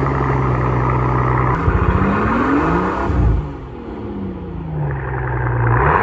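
Mercedes-Benz S65 AMG's twin-turbo V12 exhaust, revved and held at raised revs, with a rise in revs to a peak about halfway through that falls back before being held again. The turbo whistle fitted in the exhaust tip gives no whistle at all.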